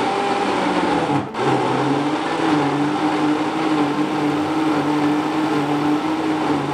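Tefal Blendforce countertop blender motor running at speed, its blades churning a wet spice paste of aromatics and water. The sound dips briefly about a second in, then runs on at a steady, slightly lower pitch.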